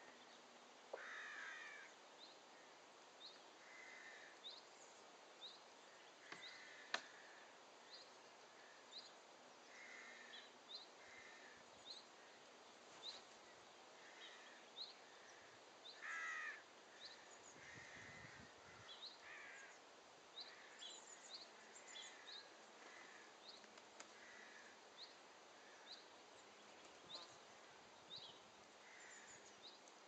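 Faint garden birdsong: a small bird repeats a short, high chirp about once a second while other birds give lower calls every second or two. One sharp tap stands out above them.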